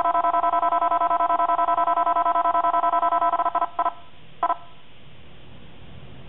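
Escort 9500ci radar detector sounding its Ka-band alert: a rapid stream of electronic beeps that breaks off after about three and a half seconds, followed by two single beeps about two-thirds of a second apart. The beeping slows as the Ka signal strength on the display falls.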